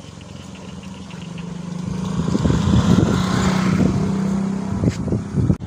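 A motor vehicle's engine running at a steady pitch close by, growing louder over about two seconds, holding, then dropping away near the end.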